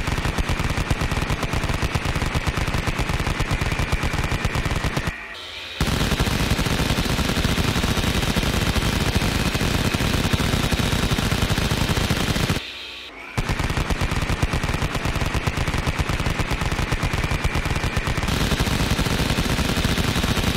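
Battery-powered plastic toy rifle giving out its electronic machine-gun sound effect, a rapid run of shots. It comes in three long bursts, with short breaks about five seconds in and again about thirteen seconds in.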